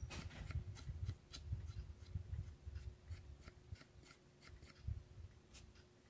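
Paintbrush bristles scratching across the wooden birdhouse in short, irregular strokes, a few a second, faint, with soft dull bumps underneath.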